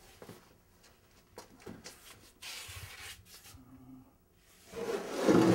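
Large stretched canvases being handled in a wooden storage rack: soft rubbing and a few light knocks as they are leaned and shuffled against one another, with a louder scrape near the end.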